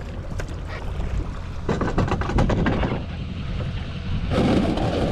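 Wind buffeting the microphone over water moving along a canoe's hull, with two louder rushing bursts, about two seconds in and again near the end.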